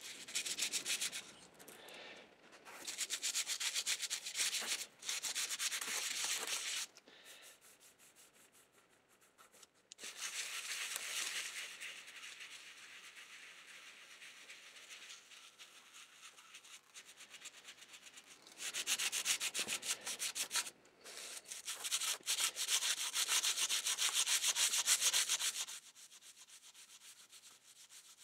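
Old toothbrush bristles scrubbing tarnish off a brass steam locomotive model's shell, in rapid back-and-forth strokes. The scrubbing comes in louder spells with lighter, quieter stretches between.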